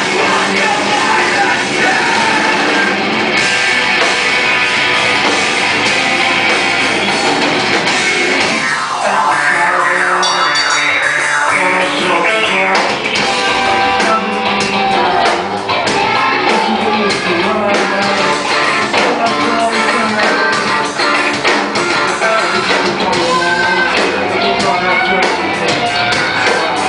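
Rock band playing live at full volume, the sound thinning briefly around nine to twelve seconds in before the full band returns.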